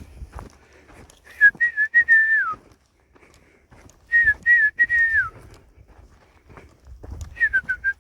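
A man whistling the same short phrase three times, a few clear notes that end in a falling glide each time, with about three seconds between phrases.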